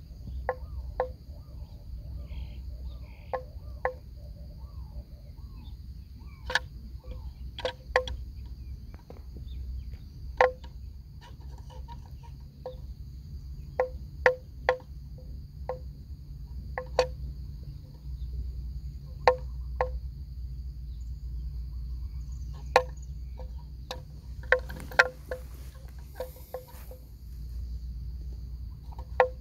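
A neck bell on a grazing water buffalo clanking at irregular intervals, each stroke a short hollow ring. Under it runs a steady high-pitched insect drone and low wind rumble.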